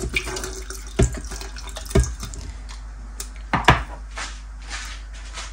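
Tinned pineapple and its juice being poured into a blender jug: liquid pouring and splashing, with three sharp knocks.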